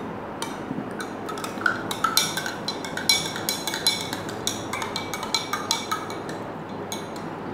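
A metal spoon clinking against a drinking glass of water as it is stirred: a quick, irregular run of light, ringing clinks, thickest in the middle of the stretch.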